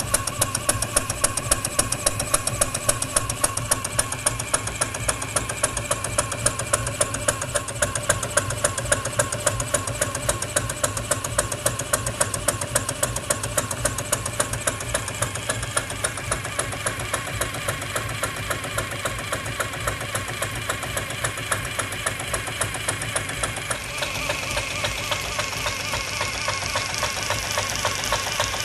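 PM Research 6CI horizontal steam engine running steadily on compressed air, a rapid, even beat. Its exhaust is muffled by a rag wrapped around the exhaust pipe, so the quiet running of the connecting rod linkage comes through. The sound grows brighter, with more hiss, near the end.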